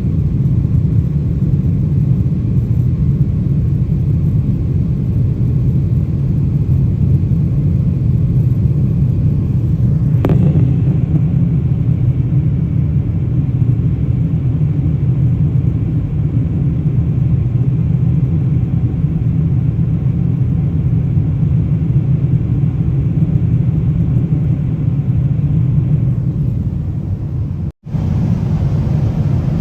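Steady low rumble of an airliner cabin in flight: jet engine and airflow noise heard from a window seat. A single short click about ten seconds in, and a brief drop-out near the end.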